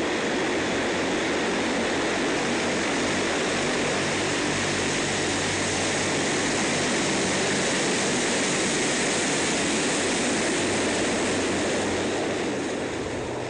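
Antonov An-22's four Kuznetsov NK-12 turboprops with contra-rotating propellers running as the aircraft rolls along the ground: a steady, dense rush of noise over a low drone. The sound fades slightly near the end.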